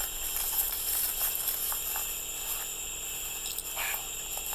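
Rustling of leaves and twigs and footsteps as people push through brush on foot, over a steady high-pitched hiss of night insects.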